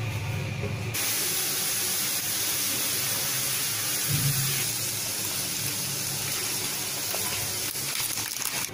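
A pot of moong dal boiling on a gas stove, giving a steady, even hiss of boiling water and flame. The hiss begins abruptly about a second in.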